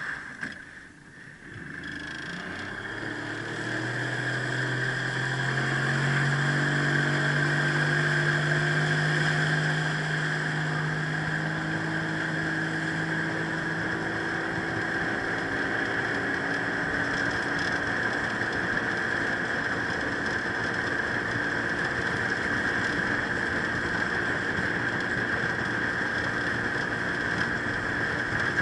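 A 25 hp outboard motor throttling up from low speed: its pitch and loudness climb over the first several seconds. It then runs steadily at cruising speed, pushing the aluminium jon boat across open water, with a constant hiss over the engine.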